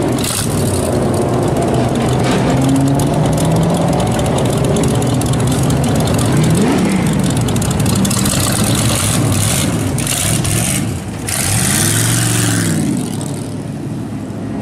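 Rat rod pickup's engine idling with throttle blips, its pitch rising and falling twice: once about halfway through and once more strongly near the end as the truck pulls away.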